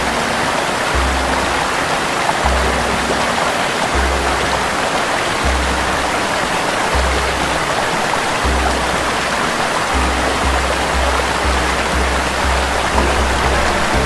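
Water rushing steadily over a small rocky cascade, mixed with background music whose low bass note comes about every second and a half and quickens near the end.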